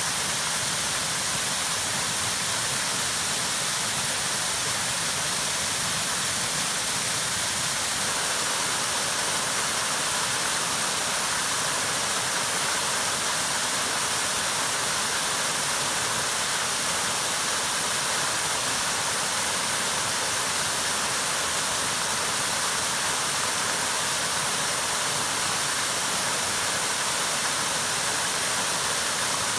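Small waterfall pouring over rock ledges into a shallow pool: a steady, unbroken rush of falling water.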